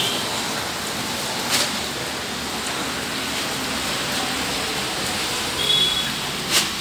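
Steady rain and wind: an even hiss that does not let up, with two sharp clicks, one about a second and a half in and one near the end.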